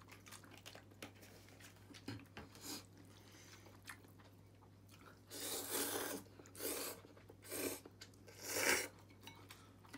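People slurping ramen noodles from bowls: quiet at first, then four loud slurps in the second half, the first the longest.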